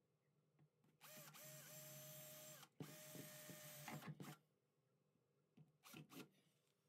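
Cordless drill boring into a fridge's interior ceiling, run twice for about a second and a half each with a brief pause between, a steady motor whine over the noise of the bit cutting. A few light knocks follow about six seconds in.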